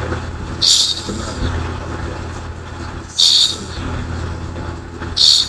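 A sleeper with sleep apnea snoring: short hissing breaths about every two and a half seconds, over a low steady hum.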